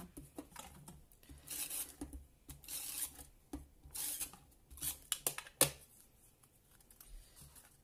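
Paper and card being handled and rubbed down flat, in short, irregular rustling strokes, with one sharp tap a little over halfway through.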